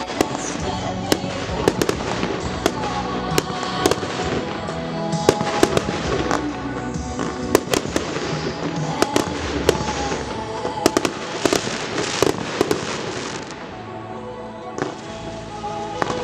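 Aerial fireworks shells bursting in quick succession, a dense run of sharp bangs over music playing with the display. The bangs pause briefly about three-quarters of the way through, then resume.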